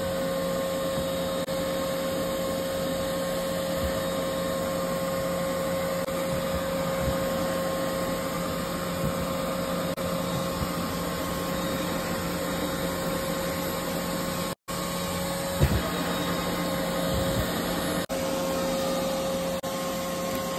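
Vacuum cleaner running steadily with a constant whine as its nozzle sucks lint off a commercial dryer's mesh lint screen. There is a single knock about three-quarters of the way through.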